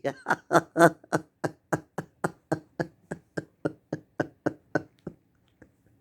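A man laughing: a long run of short breathy 'ha' pulses, about four a second, loud at first and fading away until it dies out about five seconds in.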